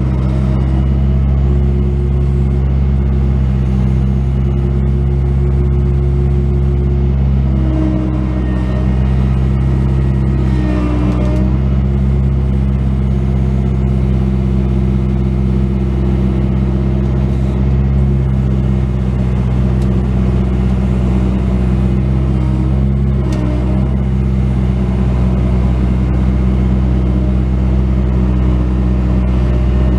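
Bobcat S185 skid steer loader's diesel engine running steadily, with a higher tone in it that shifts in pitch now and then.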